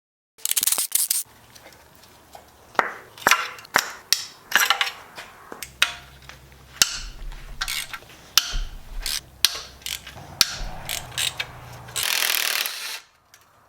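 Hand ratchet clicking in irregular runs as bolts are worked loose on an engine teardown, with clinks of tools and parts. There is a denser rasping burst for about a second near the end.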